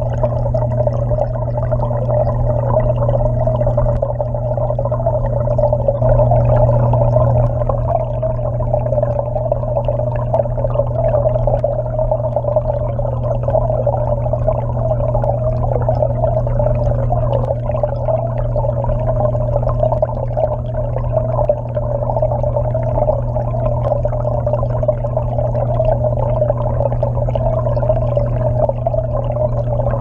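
Steady, muffled rush and churn of water circulating from an aquarium waterfall, heard from underwater inside the tank, with a deep steady drone beneath it.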